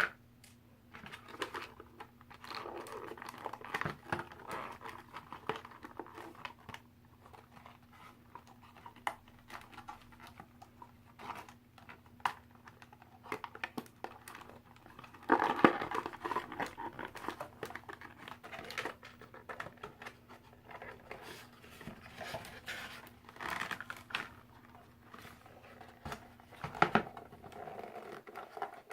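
Toy packaging being handled and opened: plastic and cardboard crinkling and rustling, with irregular small clicks. The loudest rustle comes about halfway through.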